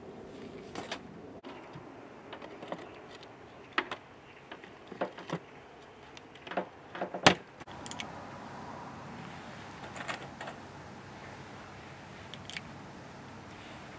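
Irregular light clicks and knocks, a dozen or so, with the sharpest click about seven seconds in, over faint background noise.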